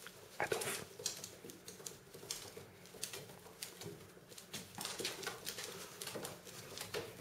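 A cat scrambling and pouncing on carpet, its paws and claws making quick, irregular pattering taps and scratches, with a louder bump about half a second in.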